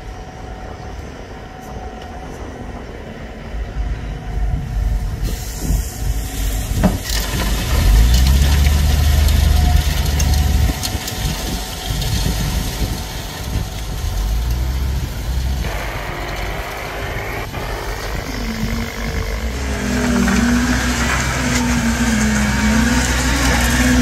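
Heavy diesel engine of a concrete pump running under load while concrete is pumped through the boom hose, growing louder about a third of the way in, its pitch wavering near the end.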